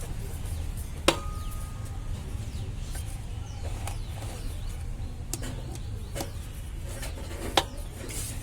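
Hard metal clinks and knocks of tools and parts being handled: a sharp clink with a brief ringing tone about a second in, fainter knocks through the middle, and another sharp click near the end, over a low steady hum.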